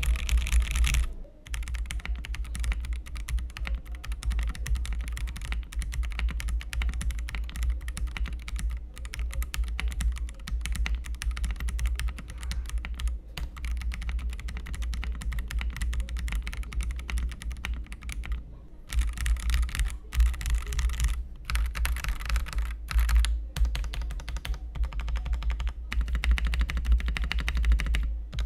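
Fast typing on a Rexus Daxa M100X Ultimate, a full-size gasket-mount mechanical keyboard with a polycarbonate plate: a dense run of keystrokes, pausing briefly twice.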